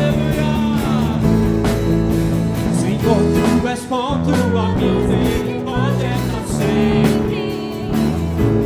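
Worship band playing with guitar, and a singing voice coming in partway through.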